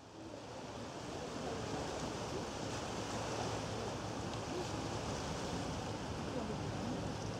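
Steady rushing outdoor ambience of wind and lapping lake water, rising in level over the first second.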